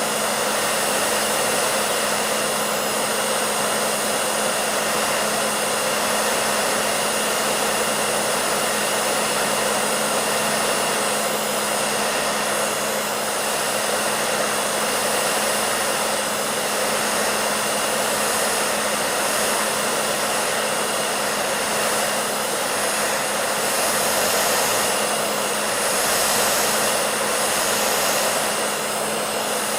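Hair dryer running steadily: a constant rush of blown air over a low, even motor hum, with slight swells in the hiss near the end.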